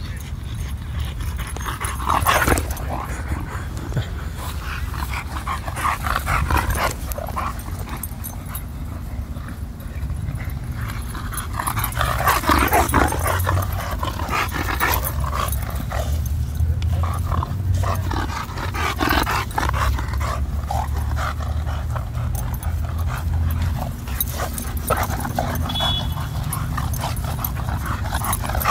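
Two boxer dogs play-fighting, growling in repeated short bursts over a steady low rumble.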